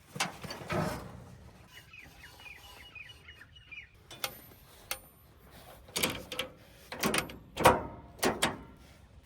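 Several sharp knocks and clatters. Between them, about two seconds in, a quick run of high chirps.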